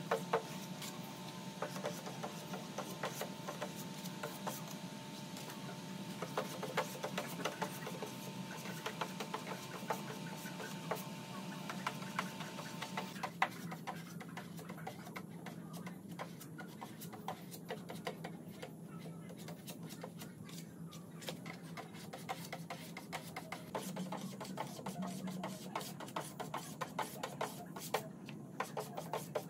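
Plastic spreader scraping and tapping as body filler is spread across a car bonnet, in quick irregular strokes over a steady low hum.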